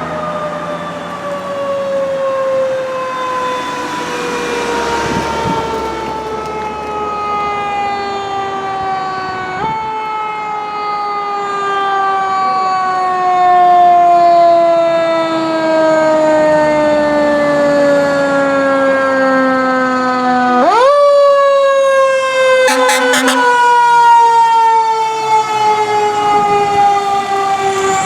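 Fire engine siren wailing and slowly winding down in pitch. It is pushed back up briefly about ten seconds in and sharply about twenty-one seconds in, then falls again.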